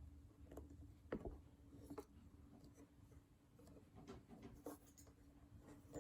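Faint, scattered small clicks and light scraping from hands handling a microphone and its swivel mount, with one sharper knock about a second in.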